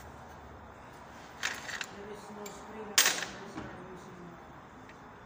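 Clutch pressure plate being fitted onto an engine's flywheel by hand, metal on metal: a short clatter of clicks about a second and a half in, then one loud sharp clank about three seconds in.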